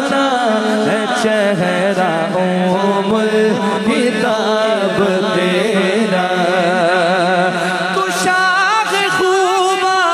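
A male naat reciter singing through a microphone and loudspeaker: a drawn-out melodic passage in which no words are made out, with long held notes wavering in pitch. A steady low drone sounds beneath the voice.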